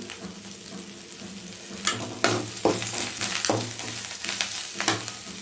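Drumstick leaves and onions sizzling steadily as they are sautéed in oil in an aluminium kadai. From about two seconds in, a metal spatula stirs them, scraping and knocking against the pan several times.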